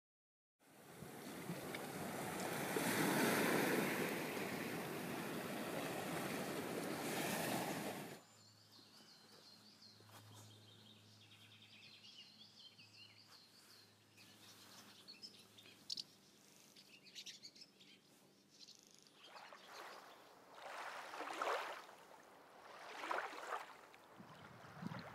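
Outdoor ambience: a loud, steady rushing noise for the first eight seconds cuts off suddenly. After it comes a quiet stretch with faint small-bird chirps. Near the end there are several short swelling rushes of wind or water.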